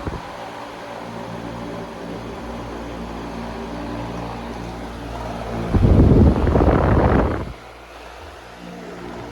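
Arge Twister 160W wall fan running, a steady motor hum under the rush of moving air. About six seconds in, a strong blast of air from the fan hits the microphone for roughly two seconds, then drops back to the steady hum.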